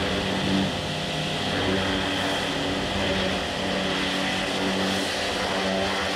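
High-pressure water cleaner running steadily. Its pump hums under the hiss of the jet as it blasts loose mortar and dirt out of the joints of a stone wall.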